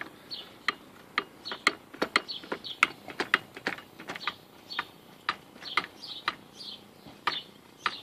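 Hydraulic hand pump being worked, clicking at each stroke, about two clicks a second, as a Harbor Freight 20-ton short ram extends against a truck's front wheel hub assembly to press it out.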